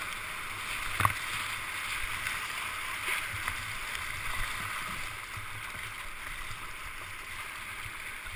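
Whitewater rapids rushing steadily around a kayak, with one sharp knock about a second in.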